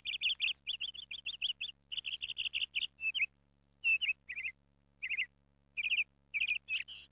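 A small songbird chirping in quick runs of short, sweeping chirps, several a second, broken by short pauses in the second half, over a faint steady low hum.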